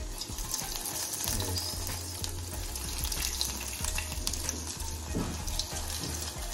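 Chicken cutlets sizzling and crackling as they deep-fry in very hot oil in a small steel kadai. The sizzle starts as the first cutlet is slid into the oil and keeps on steadily.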